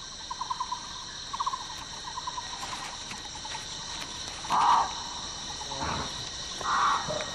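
Forest ambience: a steady high-pitched insect chorus, with short pulsed trills repeating about once a second early on and two louder short calls about four and a half and seven seconds in.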